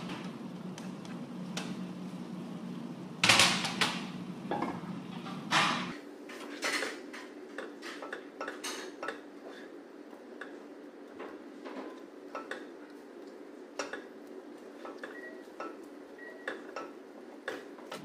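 Black slotted spatula knocking and scraping in a large frying pan as shredded cabbage is tipped in from a plastic cutting board and stirred through the chicken and vegetables, with irregular clatters, the loudest about three and a half and six seconds in. A steady low hum underneath stops suddenly about six seconds in.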